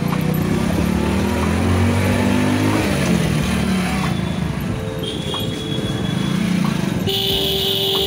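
Road traffic of motorcycles and cars, with engines running and rising and falling in pitch as they rev. A horn sounds briefly about five seconds in, and a long, loud horn blast starts near the end.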